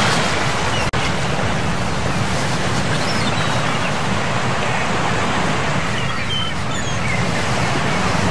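Steady rushing outdoor noise with a few short bird chirps over it. The sound drops out for an instant about a second in.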